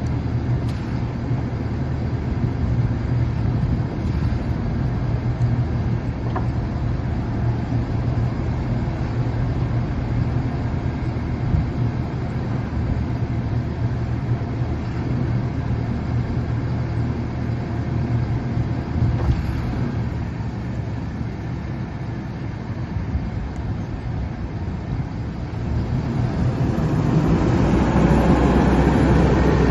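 Hyster H120-6 heavy forklift's diesel engine idling steadily, then revving up louder about 27 seconds in as the truck drives off.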